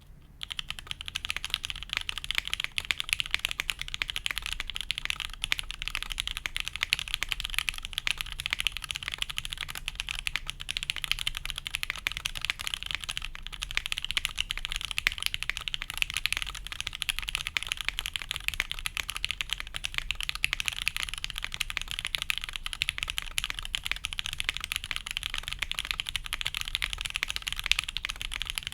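Steady, fast typing on a custom mechanical keyboard: SP-Star Meteor White switches lubed with Tribosys 3204, on a G10 plate with no dampening, under GMK keycaps. The keystrokes run continuously as a dense stream of clacks.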